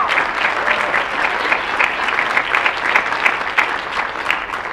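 Theatre audience and cast applauding, many hands clapping at once; the applause begins to die down near the end.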